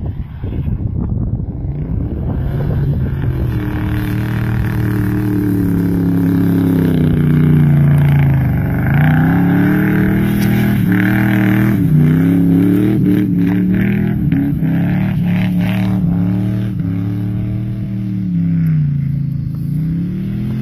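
Ford AU Falcon wagon's V8 engine revving hard and repeatedly, its pitch rising and falling again and again as the wheels spin through snow and mud.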